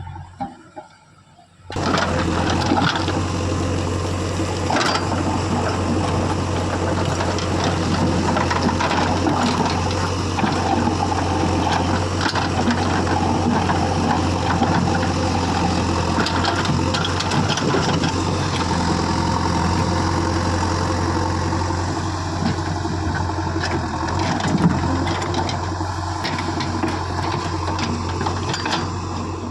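Backhoe loader's diesel engine running steadily under work, with scattered knocks and clatter. It starts about two seconds in.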